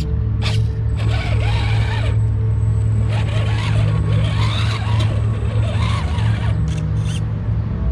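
Redcat Gen8 1/10-scale RC rock crawler's electric motor and gear drivetrain whining and grinding as it crawls over rocks.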